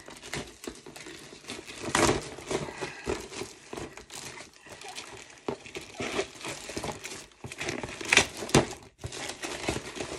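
Packaging crinkling and tearing as a parcel is opened by hand, with louder rips about two seconds in and twice near the end.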